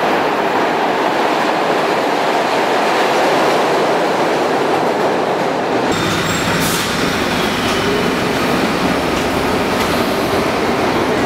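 SEPTA Broad Street Line subway train running through the station with a steady, loud rush of wheels on rails. About six seconds in, the sound changes to a closer, deeper rumble with faint high-pitched squeals and a few clicks over it.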